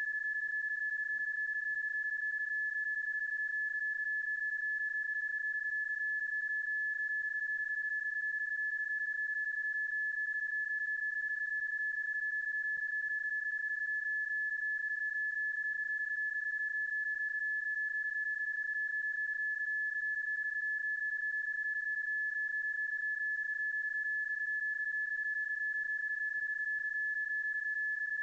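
A PSK31 digital-mode signal tone sounding as one steady, unbroken high note. It is a sound effect stretched and looped to stand in for the real transmission, not the actual signal.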